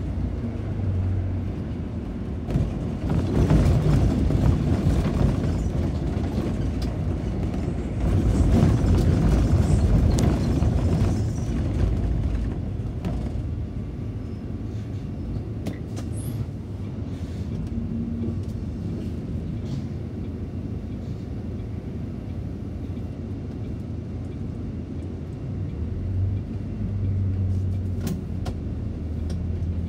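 City bus running along the road: engine rumble and road noise from inside the bus. It grows louder in two spells in the first half, then settles to a steadier, lower rumble.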